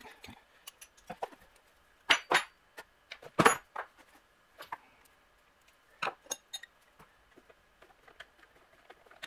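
Metal wrenches and the small parts of a pressure washer's unloader valve clinking and knocking as they are handled and worked loose, about a dozen separate clicks with short gaps between, the loudest about three and a half seconds in.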